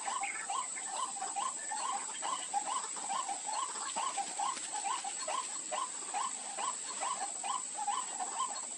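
White-breasted waterhen calling: a steady series of short, rising notes, about two and a half a second, over a constant high-pitched tone.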